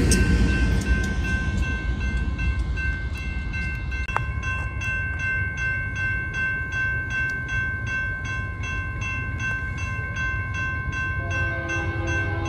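Grade-crossing warning bells ringing in evenly repeated strokes at a lowered crossing. Near the end a locomotive horn begins to sound, several tones together, and follows the low rumble of a freight train fading away at the start.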